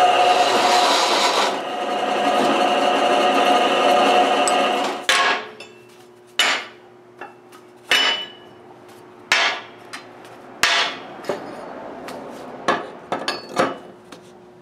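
A drill press with a hole saw cutting through square steel tubing, a loud steady grinding that stops about five seconds in. After that come about nine sharp metallic clanks with a short ring as cut steel tube blocks and pieces of round tube are set down on a steel workbench.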